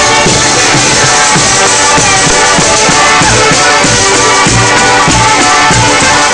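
Pizzica folk dance music: tambourines keep a fast, steady beat under held melody tones.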